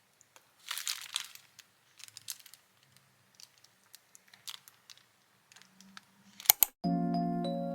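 Soft rustling and light clicks from small objects being handled, loudest about a second in and with a sharper click just before the end. Gentle chiming background music with bell-like mallet notes starts near the end.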